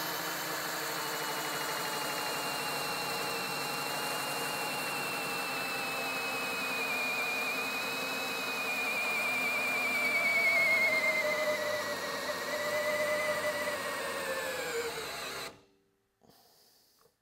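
CAT DX13 cordless drill in low gear running under a steadily increasing load on a torque dynamometer: a steady motor-and-gearbox whine that slowly drops in pitch as the load drags its speed down. It cuts off suddenly about fifteen seconds in, when the drill is brought to a stop at its maximum torque.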